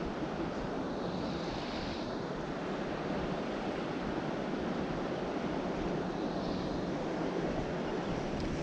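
Steady wind noise on the microphone over the wash of the sea, with two soft swells of higher hiss and no distinct events.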